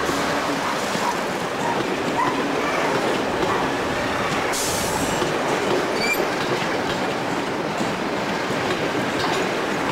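Passenger train coaches rolling slowly past along a curved platform, wheels clicking over rail joints with brief wheel squeals about six seconds in. A short hiss sounds about halfway through.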